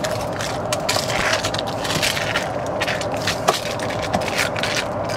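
Slotted spatula scraping baked meatballs off aluminium foil on a baking tray, a run of irregular scrapes with the foil crinkling and crackling: the meatballs are stuck to the foil.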